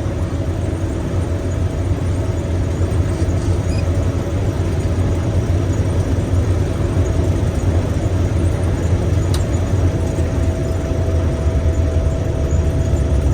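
Combine harvester running steadily in the soybean field, a continuous low engine hum under the whir of the machine.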